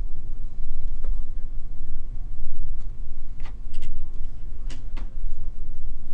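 Steady low rumble of background noise, with a few sharp clicks in the middle, which are mouse clicks while drawing shapes in the program.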